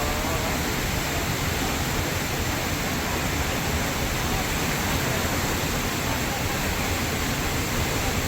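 Steady, even roar of rushing water from a waterfall.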